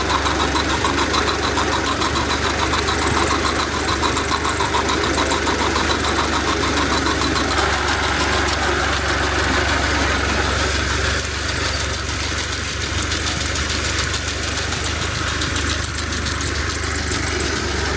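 An engine idling steadily, with a low hum and a rapid, even pulse. It eases off a little about eleven seconds in.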